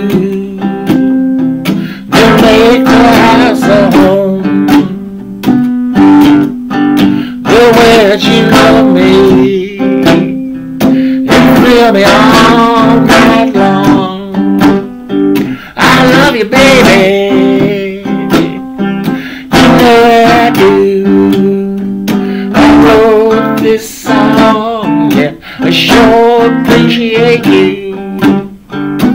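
Acoustic guitar playing a blues song, with a man's voice singing along over the strumming.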